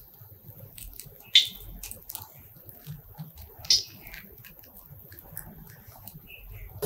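Knife cutting through a soft lentil cake (dhoka): faint soft cutting sounds and small ticks, with two short louder strokes about a second and a half in and near four seconds in.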